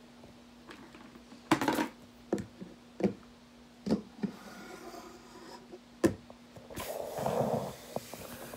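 Hard plastic toy animal figurines knocking and scraping against a wooden surface: about six sharp taps spaced roughly a second apart, with rubbing in between and a longer scrape near the end.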